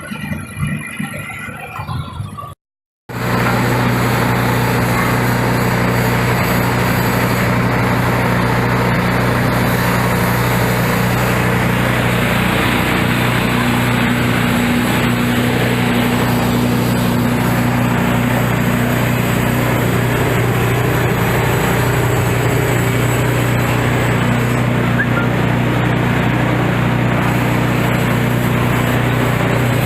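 Clove threshing machine running steadily at full speed: a constant motor hum under the dense whir of the threshing drum. It starts abruptly about three seconds in, after a short, different sound and a brief silence.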